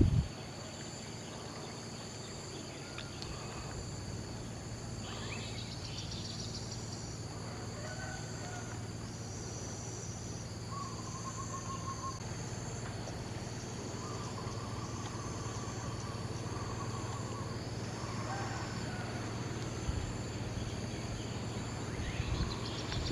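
Riverside ambience: steady high-pitched insect buzzing with a few short bird trills in the middle, over a low steady hum.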